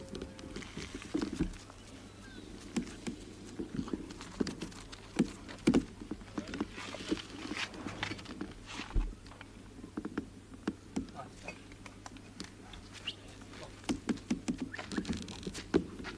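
Irregular footsteps and scuffs on a gritty road surface, from people walking a large dog on a lead.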